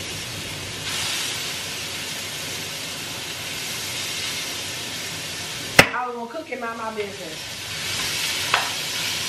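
Food frying in a pan, a steady sizzle. A single sharp knock, like a utensil striking the pan, comes about six seconds in.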